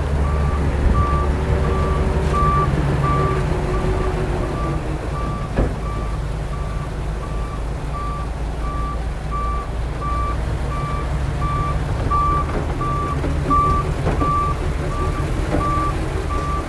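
Heavy machine's reversing alarm beeping about three times every two seconds over the steady low running of a large diesel engine, with a single knock about five and a half seconds in.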